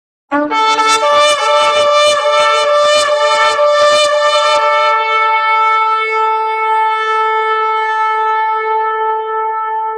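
Shofar (ram's horn) sounded: after a brief start it plays a rapid run of short broken blasts, about four a second, then settles into one long held note.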